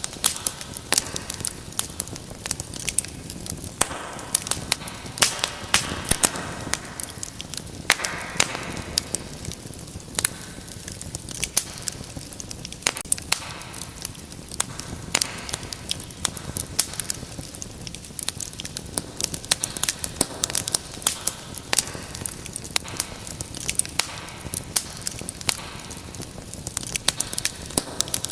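Wood fire in a fireplace burning with irregular sharp crackles and pops over a steady hiss of flames.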